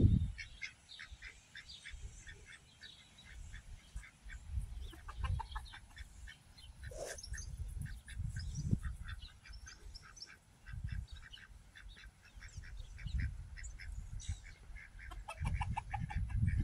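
Domestic ducks quacking and chickens clucking as a mixed flock forages, with many short chirping calls throughout. Gusty low rumbles come and go underneath.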